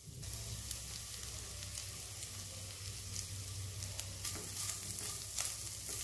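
Prawns frying in oil and butter in a frying pan, a steady sizzle, with a few light utensil clicks in the second half as chopped coriander is added and stirred in.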